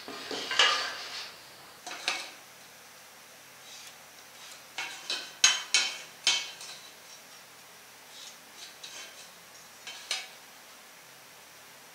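Hollow steel square tubes and a metal speed square being set down and moved on a wooden workbench: scattered light metallic clanks and taps, with a quick cluster of them about five to six seconds in.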